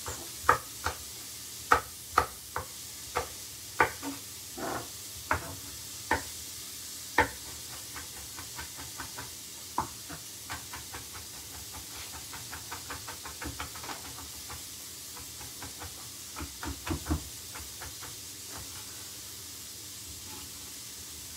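Chef's knife chopping green chilies on a wooden chopping board. It starts as single sharp chops about every half second to second, then turns to quicker, lighter taps of fine chopping, with a short flurry a few seconds before the end. Under it runs a steady faint hiss of onions and garlic frying in the pan on low heat.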